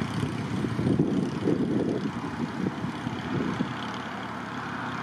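A vehicle engine running at a low, steady idle, heard under wind buffeting the microphone.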